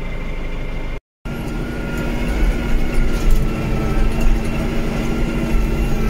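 Tractor engine running, heard from inside the cab. A short break in the sound comes about a second in. After it the tractor drives along a rough lane: a steady engine hum over an uneven low rumble.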